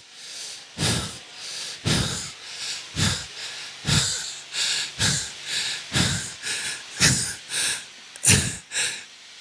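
Heavy, quick breathing close to a microphone, about one breath a second, each out-breath stronger and fuller than the faint hiss of the in-breath between.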